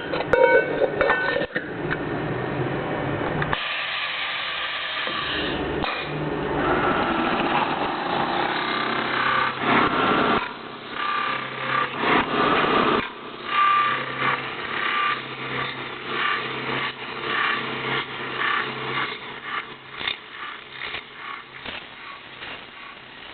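CNC metal-spinning lathe (TM400) running while its forming roller presses a spinning sheet-metal tube inward to close the neck of a kettle: a steady machine hum with the rub and squeal of the roller on the metal. From about halfway through it swells and dips in repeated passes, growing quieter toward the end.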